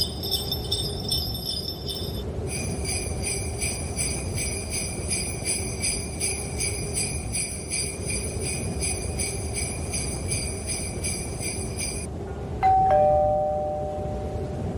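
Sleigh bells jingling, shaken in an even rhythm of two to three shakes a second over a low rumble. Near the end the bells stop and a louder two-note chime sounds, a higher note then a lower one, ringing out.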